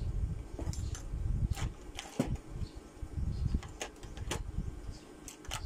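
Scattered light clicks and taps of small items being picked up and handled, over a low steady rumble.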